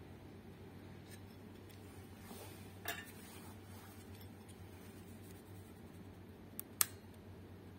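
Faint handling sounds of an amplifier circuit board with a finned aluminium heatsink: a few small clicks and clinks, the sharpest about seven seconds in, over a low steady hum.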